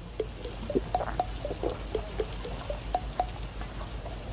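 Fish and skewers cooking on a charcoal grill, sizzling steadily with many small scattered pops and crackles.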